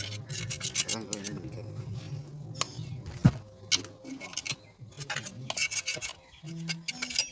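Screwdriver scraping packed sawdust out of a chainsaw's housing: a run of short scratching strokes and metal clicks.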